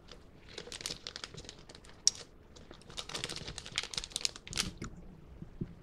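Plastic snack pouch of freeze-dried candy crinkling and crackling as it is handled, irregular and uneven, with one sharp click about two seconds in.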